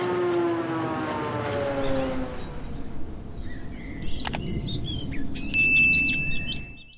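Sound effects of an animated channel logo intro: a pitched mechanical whine that falls in pitch over the first two seconds, then electronic chirps and sharp clicks, with a mouse-click sound around four seconds in and a single high ding held for about a second near the end as it fades out.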